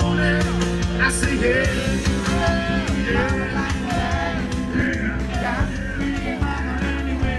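Live piano music with a voice singing a melody over sustained bass notes.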